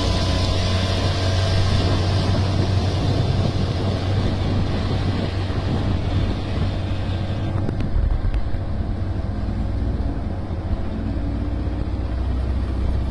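A steady engine hum with wind noise on the microphone; the higher hiss thins out about seven and a half seconds in.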